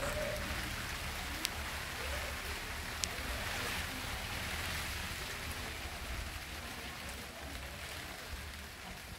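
Steady hiss of falling rain over a low rumble, with two sharp ticks of drops landing about a second and a half apart in the first few seconds.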